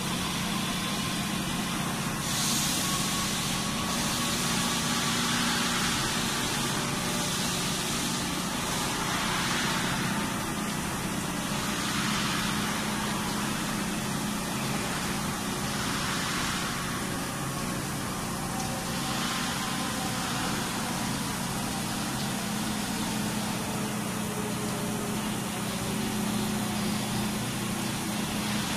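Bridge-type CNC vertical surface grinding machine running while grinding a large steel ring under coolant: a steady low motor hum with a grinding hiss that swells and fades about every two seconds.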